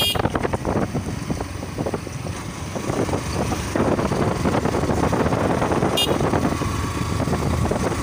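Motorcycle running at road speed, heard from the rider's seat: a steady mix of engine and rushing road and air noise. A brief high-pitched chirp comes about six seconds in.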